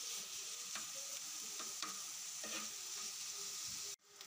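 Chicken keema sizzling as it is dry-fried (bhuna) on a flat tawa griddle, with a metal spatula scraping and stirring it about once a second. The sound cuts out abruptly near the end.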